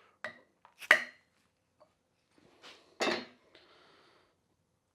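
A few light metal taps and clinks on a spanner wrench seated in the threaded collar of a lift's hydraulic cylinder, knocking the collar loose; the loudest, about a second in, rings briefly.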